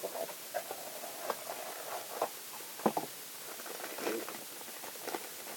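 Items and packaging from a subscription box being handled: scattered light rustles and small taps, with one sharper tap about three seconds in.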